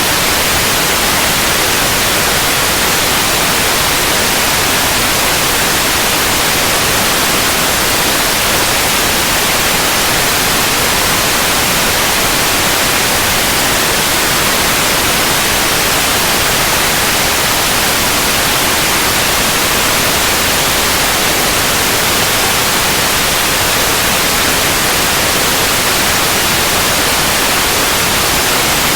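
Steady white noise: a continuous, even hiss, brightest in the high frequencies, with no change.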